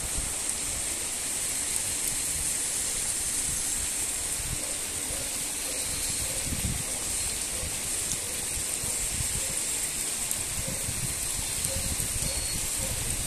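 Heavy rain falling steadily, with rainwater running down a small muddy runoff channel.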